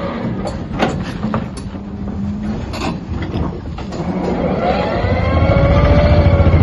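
Xcentric Ripper XR42 on a Hyundai 330 excavator working limestone. The excavator's engine and hydraulics run steadily, with a few sharp knocks and cracks of rock in the first half. About five seconds in the ripper's rapid vibrating hammering builds up louder, with a whine that rises and falls in pitch.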